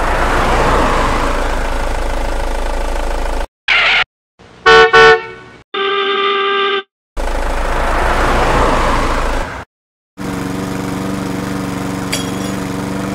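Dubbed airport sound effects: a rushing noise, two short vehicle-horn honks, a brief steady tone, the rushing noise again, then a steady engine hum with one click near the end.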